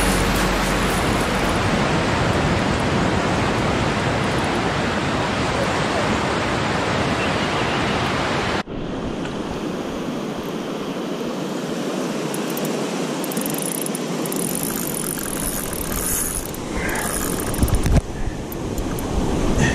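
Waves washing onto a beach, with wind noise on the microphone. The sound changes abruptly about halfway through and again near the end.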